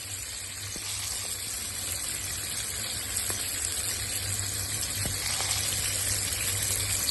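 Hilsa fish pieces frying in hot oil in a pan, a steady sizzle with fine crackling.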